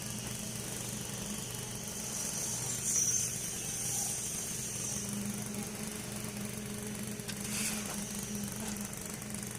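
An engine running steadily at an even speed, most likely on construction machinery. A hissing noise swells briefly about three seconds in.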